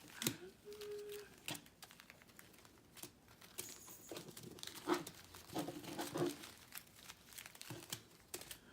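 Small plastic bags of diamond painting drills crinkling and rustling as they are handled, with scattered light clicks.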